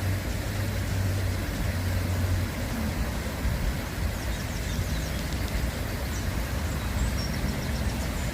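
Outdoor ambience dominated by a steady low rumble, with a few faint, high, quick bird chirps about four seconds in and again near the end.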